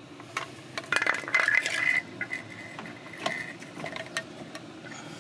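Metal hand tools and small hardware clinking and clicking as the waste valve flange is unbolted, with a brief cluster of sharper metallic clinks and ringing about a second in.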